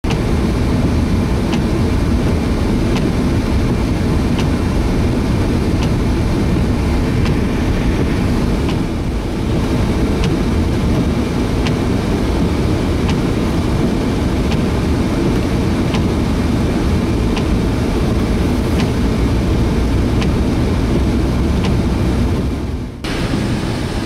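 Steady low rumble of a car's engine and tyres heard from inside the cabin while driving on a snowy highway, with a faint regular tick about every second and a half. The sound dips briefly near the end.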